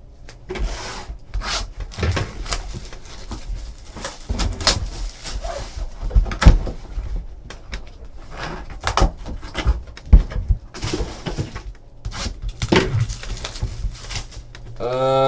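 Irregular crinkling, tapping and tearing from a trading card box and its packs being opened and handled, over a faint steady low hum.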